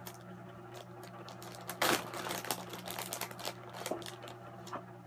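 Plastic bag of soft plastic worm baits crinkling and rustling in the hands as a worm is taken out, with scattered small crackles and one louder rustle about two seconds in.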